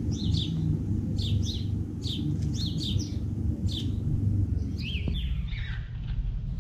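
Bird chirping: short, high, falling chirps repeated every half second or so, with a lower run of chirps about five seconds in, over a steady low rumble.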